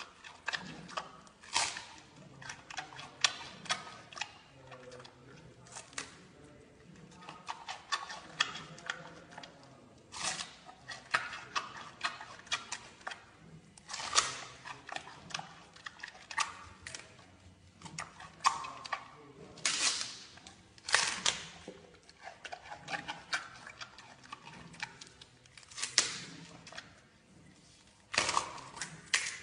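Giant panda biting and chewing a bamboo shoot: irregular crisp cracks and crunches, a loud one every second or few with softer chewing between.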